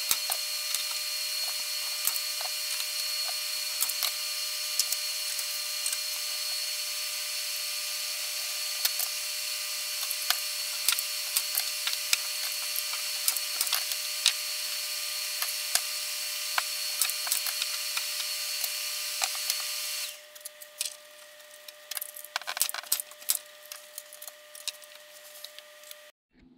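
Shop hand-tool and wall-mounting work: a steady hiss with a constant whine and many quick clicks and taps, which cuts off suddenly about twenty seconds in. After that come quieter, scattered knocks and taps.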